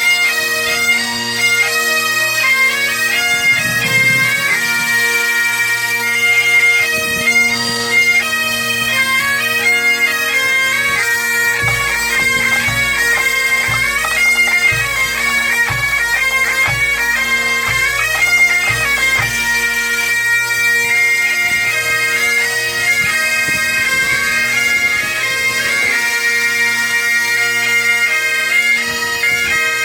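Breton bagad (pipe band) playing: bagpipes sounding a steady drone under a lively melody. From about twelve seconds in until about twenty, a bass drum beats along.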